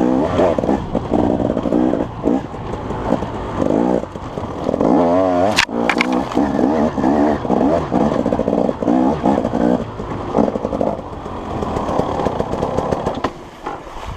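Small engine of an off-road vehicle being ridden, its revs rising and falling again and again, with one sharp click about five and a half seconds in. The engine fades away near the end.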